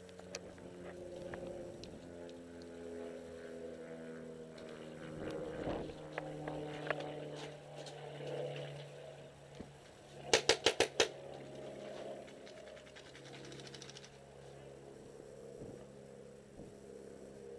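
A paintball marker firing a rapid string of five shots close by, about ten seconds in, each shot a sharp crack, all five within under a second.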